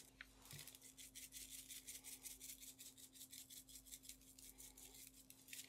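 Faint, quick, even rattle of a small shaker jar of coarse salt and pepper being shaken over raw beef ribs, the grains scattering onto the meat and metal sheet tray. A low steady hum sits underneath.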